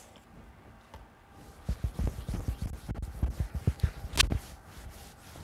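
Fingertips patting face cream into the skin: a quick, irregular run of soft, low pats starting about two seconds in, with one sharp click about four seconds in.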